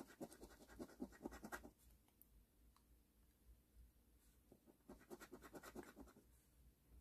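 Quiet, quick scratching as the coating is rubbed off a scratch-off lottery ticket, in two short bouts a few seconds apart.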